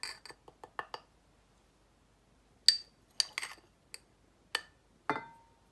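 Metal spoon clinking against a glass measuring jug as ground spices are spooned in: a few quick clinks, a pause, then a string of separate taps, the last one ringing briefly.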